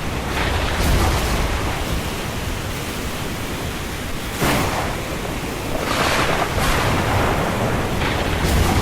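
Storm wind rushing steadily, with several gusts swelling briefly over a low rumble.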